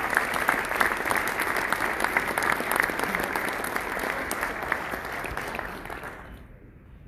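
Audience applauding, the clapping fading out about six seconds in.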